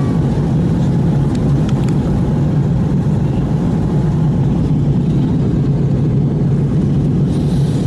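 Steady drone of an airliner cabin in flight: jet engine and airflow noise, strongest as a low hum.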